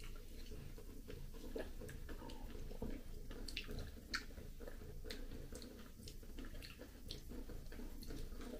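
Soft, ripe persimmon being eaten close to the microphone: quiet wet chewing with irregular sharp mouth clicks and lip smacks.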